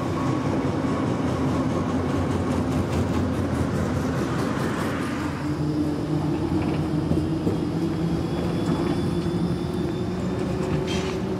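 Low-floor articulated electric trams rolling past on street track: a steady rumble of wheels on rail with a hum from the drive that strengthens partway through, over surrounding road traffic.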